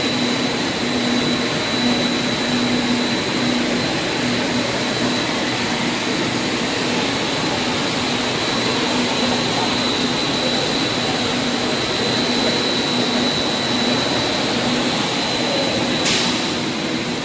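PET monofilament extrusion line running: a steady machine rush with a constant high whine and a low hum that pulses about twice a second. A single short click near the end.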